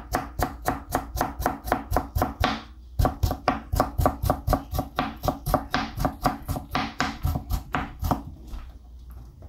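Kitchen knife slicing watermelon rind into thin pieces on a plastic cutting board: a quick, even run of knocks of the blade against the board, about four or five a second, with a short break about three seconds in, stopping about eight seconds in.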